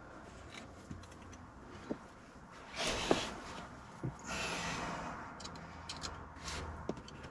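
Hands working an electrical earth wire and a small pair of pliers: a handful of small clicks and taps, with short bursts of rustling.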